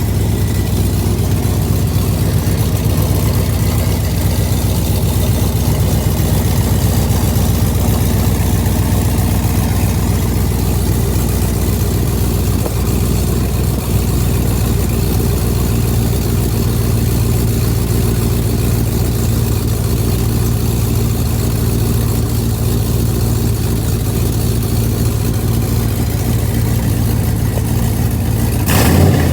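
Pontiac G8 GT's V8 idling steadily through freshly installed longtube headers and a 2.5-inch straight-back exhaust pipe, with a brief louder burst at the very end.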